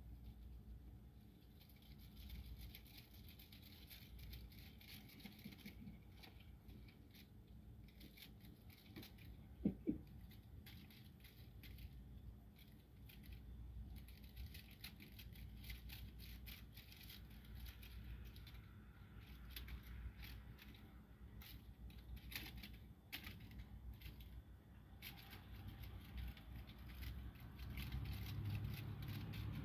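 Faint scattered rustling and ticking of a cat wand toy, its foil bows and tinsel pompoms shaken and dragged over a carpet mat. Two brief sharp sounds about ten seconds in, and a low rumble building near the end.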